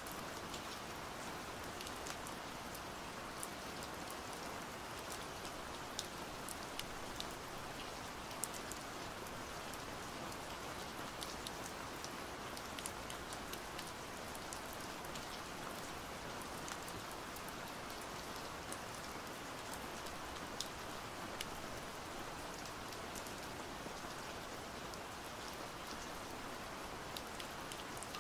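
Rain ambience: steady rain falling, with many small, sharp drop ticks scattered through the even hiss.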